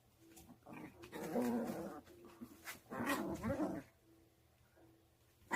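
Puppies growling as they play-fight: two rough growling bouts of about a second each, one about a second in and one about three seconds in.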